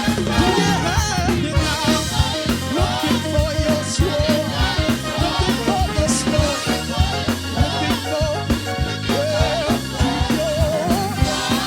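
Gospel praise and worship music: a sung vocal line over a band with a steady drum beat and bass.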